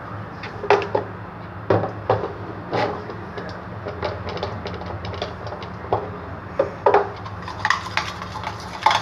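Irregular clinks and knocks of a spoon, a baby bottle and a small pot being handled and set down, over a steady low hum.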